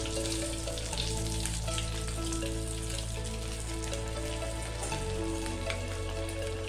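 Bread-crumb-coated chicken balls deep-frying in hot oil, a steady sizzle full of small crackles. Soft background music with a slow melody plays underneath.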